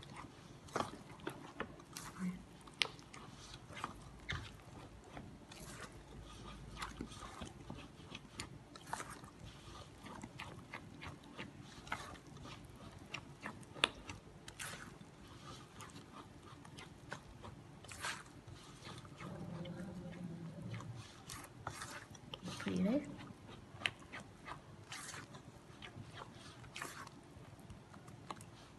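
A hand squeezing and working a thick rice-flour batter in a stainless steel bowl: irregular wet squelches and small clicks of fingers in the dough, with a short pitched call near the end.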